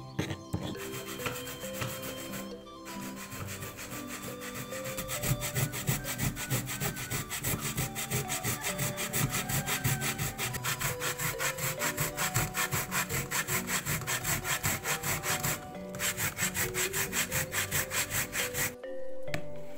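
Fresh coconut flesh being grated by hand on a metal grater: quick, even rasping strokes, several a second, with a short break before the strokes stop near the end. In the first few seconds, a stone pestle grinds spice paste in a stone mortar.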